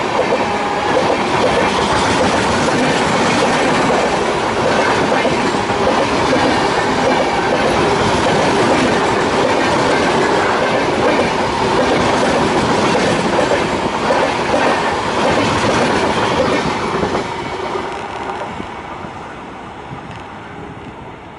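Express train's passenger coaches rolling past close by at speed, their wheels running over the rails. The sound fades steadily near the end as the last coach pulls away.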